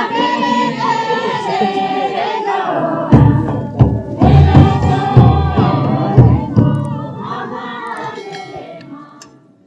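A crowd of many voices chanting and shouting together, with heavy low thumps through the middle, fading out near the end.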